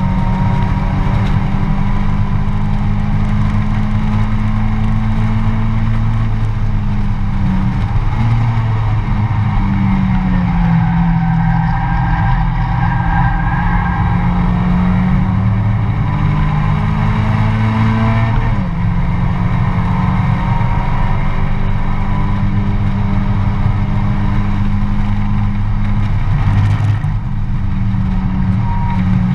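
Mazda MX-5 race car's four-cylinder engine running hard under racing load, heard from the cockpit, its pitch climbing slowly and dropping sharply a few times as the driver changes gear or lifts. Steady road and wind noise runs underneath.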